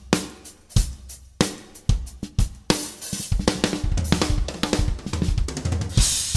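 Acoustic drum kit played with sticks: spaced kick, snare and cymbal hits at first, then from about three seconds in a dense run of drum strokes heavy in the low drums, landing on a cymbal crash near the end.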